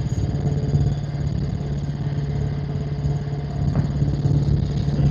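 Helicopter in flight: a steady, loud drone of rotor and engine with a constant low hum and a fast pulsing beat underneath.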